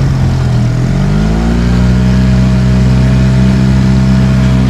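Small boat's outboard motor running, picking up revs about a second in and then holding steady at the higher speed.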